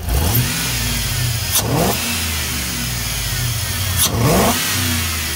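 GM Vortec LS-family V8 running, blipped by hand at the throttle body three times: near the start, about a second and a half in, and about four seconds in. Each rev rises quickly and drops back to idle. The engine is not yet at operating temperature.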